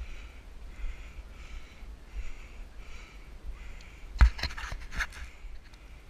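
Quick, rhythmic, hard breathing of someone hiking uphill, close to the camera, repeating about twice a second. About four seconds in, a cluster of sharp knocks and scrapes as a hand handles the camera, the loudest sounds here.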